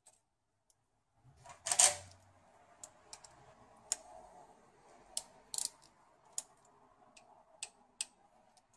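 Sharp metallic clicks from a ratchet wrench and hand tools being handled and worked. There is one louder, longer rasp about two seconds in, then single clicks scattered every half second to a second.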